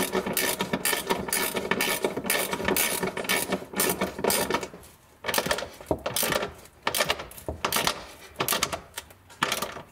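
Socket ratchet clicking as a third-row seat bolt is run down, rapid and continuous for the first half, then in shorter, separate strokes with pauses as the bolt tightens.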